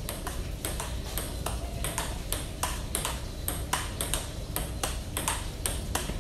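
Table tennis rally: the ball clicking sharply off the rubber paddles and the table top in a steady, even rhythm, about three hits a second, as two players trade forehands.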